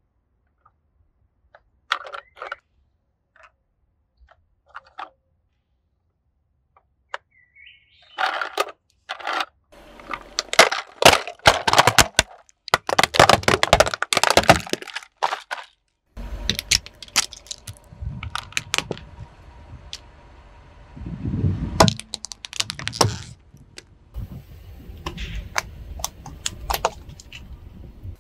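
Hard plastic toy trucks cracking and snapping under a car tyre. A few light plastic clicks come first, then a dense run of sharp cracks about a third of the way in, and later a low rumble with more scattered cracks.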